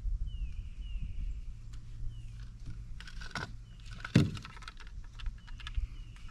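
Clicks and light metallic rattling as a bass is hooked onto a fish gripper and scale, with one heavier thump about four seconds in.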